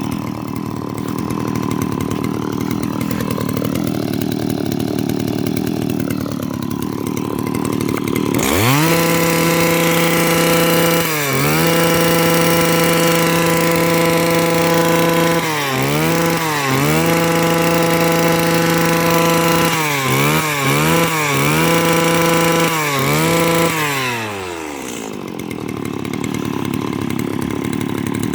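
Stihl FS85 brush cutter's small two-stroke engine idling, then revved up about eight seconds in and held at high speed with a few short throttle dips. It drops back to idle near the end.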